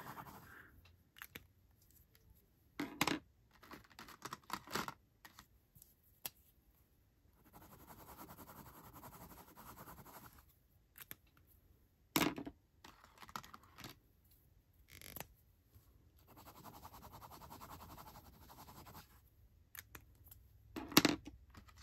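Rollerball pen tips scribbling on thin notepad paper, a soft scratchy rasp in two spells of a few seconds each. Between them come sharp plastic clicks of pen caps being pulled off or snapped on and pens being set down.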